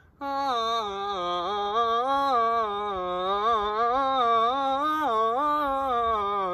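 A single voice singing a wordless tune in one long unbroken line, the pitch gliding slowly up and down and wavering near the end.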